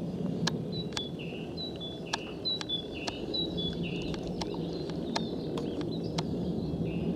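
Steady low rumble of a Boeing KC-10A's three turbofan engines as the tanker passes high overhead. Over it a small bird repeats a short phrase of two descending notes about once a second, and sharp clicks are scattered throughout.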